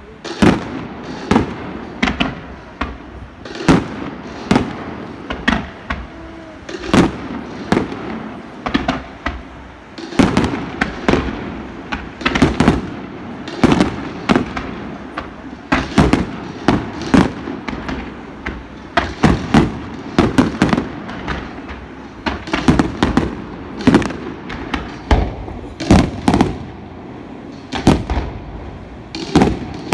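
Fireworks exploding overhead, a steady barrage of sharp bangs, often in quick pairs, about one or two a second, each trailing off in a short rumbling echo.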